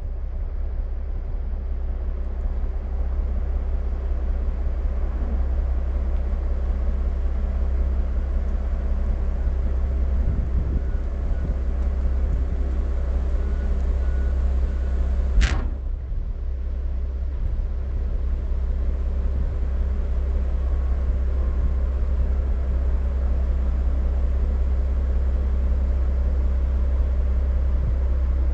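Diesel engine of a parked log truck idling with a steady low rumble. A single sharp click comes about halfway through.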